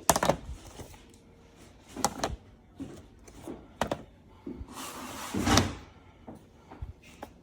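Four sharp knocks and thuds, roughly two seconds apart, the last and loudest about five and a half seconds in.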